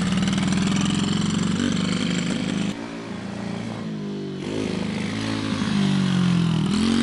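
Small dirt bike's engine running and revving as it is ridden, its pitch rising and falling with the throttle. It drops in level about three seconds in, then grows louder again near the end.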